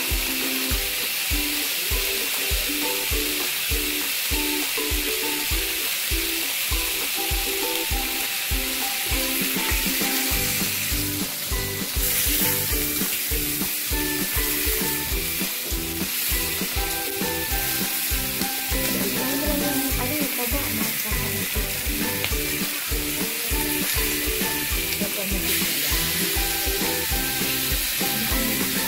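Pork belly and chicken sizzling steadily in a ridged grill pan, under background music with a steady beat of about two strokes a second.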